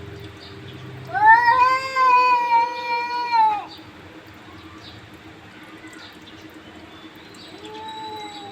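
Cats in a quarrel yowling at each other. A low drawn-out growl gives way, about a second in, to a loud long yowl lasting a couple of seconds. A quieter wavering yowl follows near the end.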